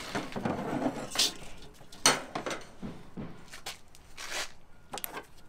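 Light clinks, taps and scrapes of a painted sheet-metal flashing piece and hand tools being handled on a table: about half a dozen separate knocks, roughly a second apart.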